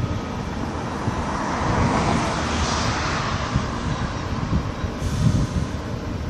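Steady mixed rumble of port machinery and vehicles, swelling a little about two seconds in, with gusts of wind buffeting the microphone.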